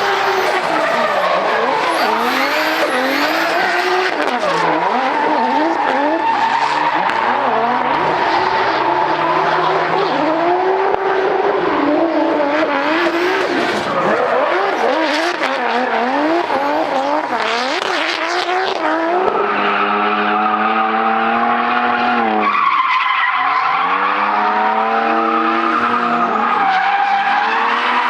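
Drift car engines revving hard, their pitch swinging rapidly up and down as the throttle is worked, over continuous tyre squeal from the sliding tyres. Near the end one engine holds a steady high note for about three seconds, then drops sharply and revs back up.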